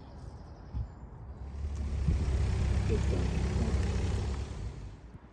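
A motor vehicle passing on a nearby road: engine and tyre noise with a low rumble swells about a second and a half in, holds for a few seconds and fades near the end.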